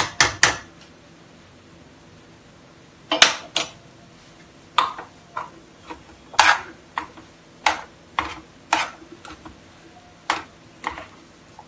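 A metal spoon clinking and scraping against a kadhai as thick cooked upma is stirred to mix in desi ghee. There are about a dozen separate short knocks at uneven intervals, with a pause of a couple of seconds near the start.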